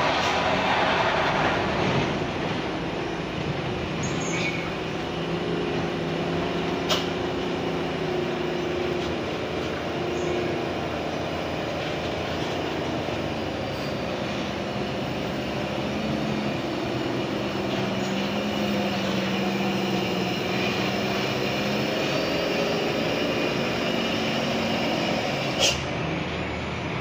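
Slow road traffic on a steep hairpin bend: heavy trucks' diesel engines running under load through the turn, their pitch rising and falling slowly, with cars and motorbikes passing. Two sharp clicks, one about seven seconds in and a louder one near the end.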